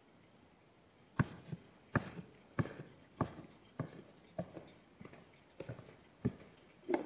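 Hooves of Hartmann's mountain zebras knocking on stony ground in a regular clip-clop, about three sharp knocks every two seconds, starting about a second in.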